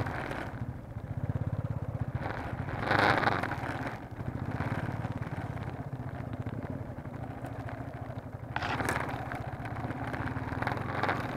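Motorcycle engine running steadily at low revs, with short swells of rougher noise, the clearest about three seconds in and again near nine seconds.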